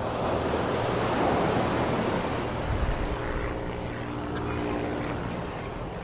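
Waves washing onto a sandy beach, loudest in the first couple of seconds. From about three seconds in, the steady drone of a distant engine joins it.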